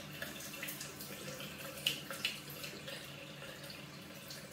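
Bathroom tap running steadily into a sink as a Gillette Mach 3 razor is rinsed under it, with a few faint clicks about two seconds in.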